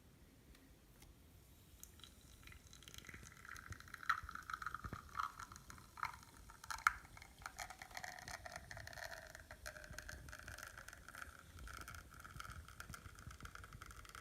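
Faema Faemina lever espresso machine running a shot: a faint liquid trickle with irregular spits and crackles, starting about two seconds in and busiest a few seconds later, then settling into a steady flow.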